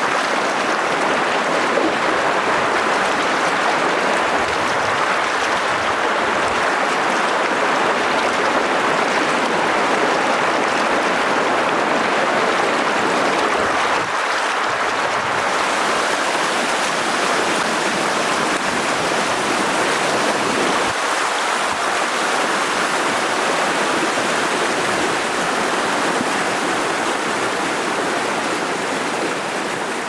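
Steady rushing of water tumbling over rocks in a rapid.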